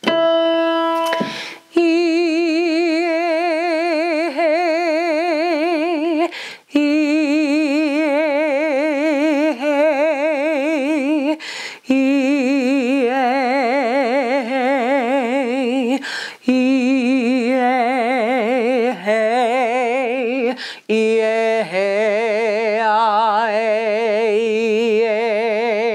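A woman singing a descending vocal exercise on the vowels 'ee' gliding to 'ay', five held phrases with wide vibrato, each a step lower than the last, working the low end of her range. A single piano note sounds first to give the starting pitch.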